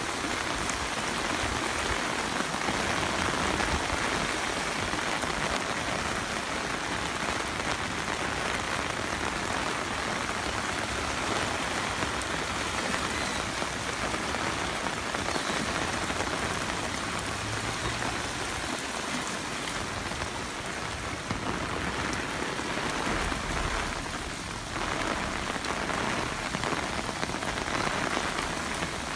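Steady rush of water, an even hiss that dips briefly about three-quarters of the way through and then resumes.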